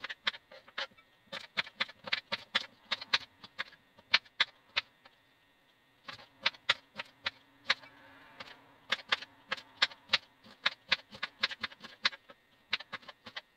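Kitchen knife chopping broccoli on a wooden chopping board: quick, uneven knocks of the blade on the board, several a second, with a pause of about a second partway through.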